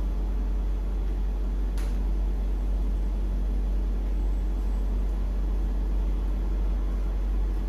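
A steady low hum, with one sharp click about two seconds in.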